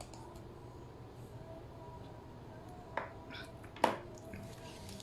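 Quiet room tone with a faint steady hum, broken by two short sharp clicks a little under a second apart, about three seconds in.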